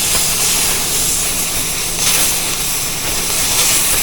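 Cutting torch hissing steadily as it cuts through a steel wheel rim, over the steady low buzz of a shop fan.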